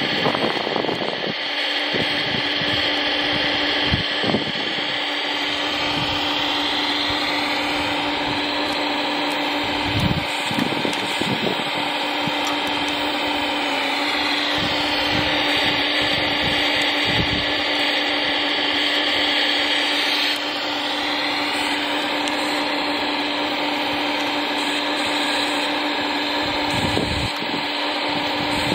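Electric motor and hydraulic pump of a radio-controlled Volvo EC480DL model excavator, whining steadily while it digs and loads. The whine rises in pitch for several seconds in the middle as the pump works harder, then drops back. Scattered short knocks of dirt and stones run through it.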